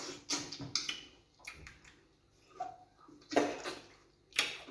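Wet eating sounds: separate sharp mouth smacks and slurps of someone eating fufu with groundnut soup. The loudest comes about three and a half seconds in, with another a second later.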